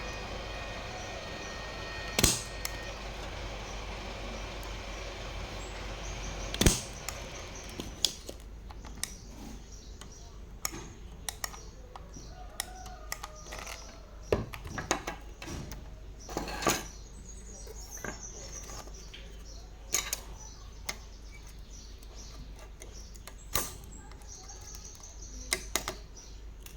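Sharp clicks, taps and clinks of small tools and parts being handled while a mixer is worked on, with a steady hum underneath that drops away about six or seven seconds in. The two loudest knocks come about two and six and a half seconds in.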